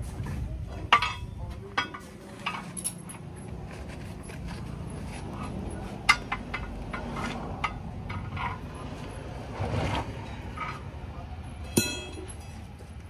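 Scattered metallic clinks and knocks of tools and wheel parts during a truck tyre change, with one louder ringing metal strike near the end.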